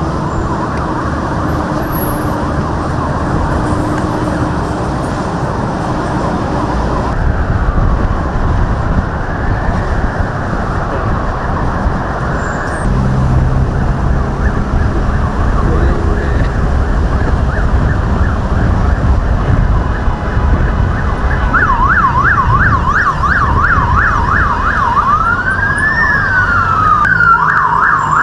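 Convoy escort sirens sounding over steady traffic and engine noise: a slow rising-and-falling wail, switching about two-thirds of the way in to a fast yelp, with more than one siren overlapping near the end.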